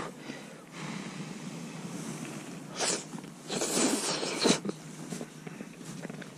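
A person slurping udon noodles: a short noisy slurp about three seconds in, then a longer, louder one right after.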